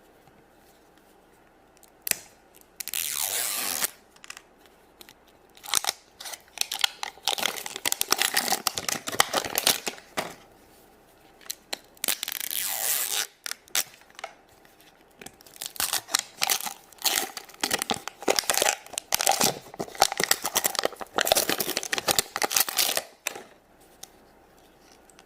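Wrapping of an L.O.L. Surprise ball being torn and peeled open by hand, in several bouts of crinkly ripping with short pauses between them.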